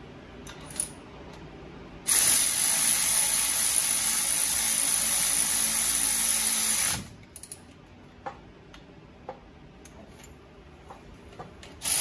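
Power ratchet running the brake caliper bolts down on a Ford Super Duty front axle: one steady run of about five seconds starting two seconds in, and another starting at the very end, with small tool clicks in between.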